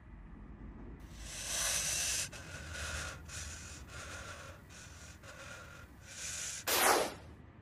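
A frightened cartoon gremlin's shaky, hissing breaths in uneven bursts, followed near the end by a louder, short breathy sound.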